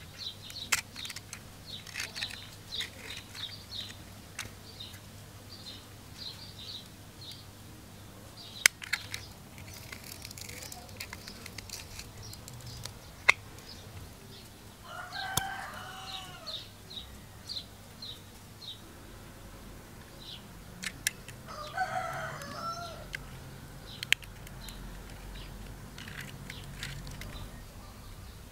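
A rooster crowing twice, about halfway through and again some seconds later, over small birds chirping throughout. A few sharp clicks and a brief rustle from handling sound close by.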